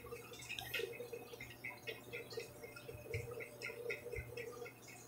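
Faint, irregular small ticks and scrapes of a thin blade prying a glued power and volume flex cable off a phone's frame, over a low steady hum.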